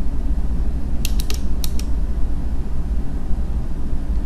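Steady low hum from the recording setup, with a quick run of about four sharp computer mouse clicks about a second in.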